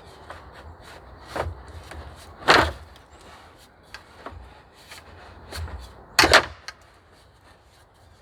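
Wood knocking and cracking in irregular sharp strikes, as sticks and logs are worked into a shelter wall. The loudest strikes come about two and a half seconds in and as a quick double crack about six seconds in.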